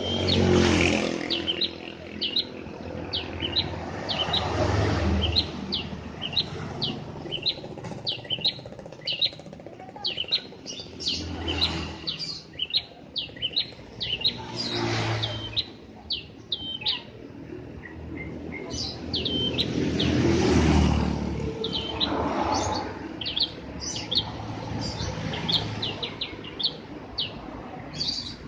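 Prenjak (prinia) chirping, a continuous run of short, sharp, high chirps, several a second. Behind it, a broad rushing noise swells and fades several times.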